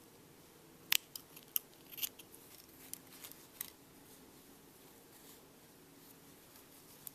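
Scissors snipping crochet yarn to fasten off: a handful of short, sharp clicks over the first few seconds, the loudest about a second in.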